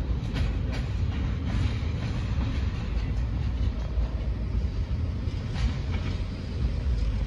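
Freight train cars rolling away along the track: a steady low rumble with scattered clicks of wheels passing over rail joints.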